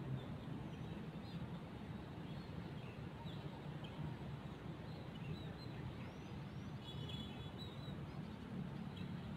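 Quiet open-air ambience at a weedy swamp: a low, steady rumble under scattered short bird chirps, with a brief cluster of chirps about seven seconds in.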